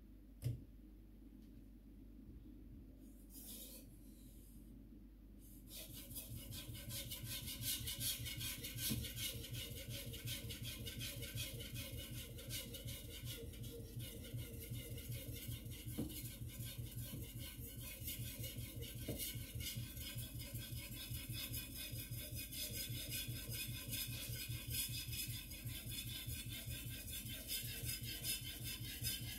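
A white #2 carbon-steel gyuto blade being sharpened on an Arashiyama #6000 water stone: a couple of knocks as the stone is set down, then from about six seconds in, rapid, steady back-and-forth scraping strokes of steel on the wet stone.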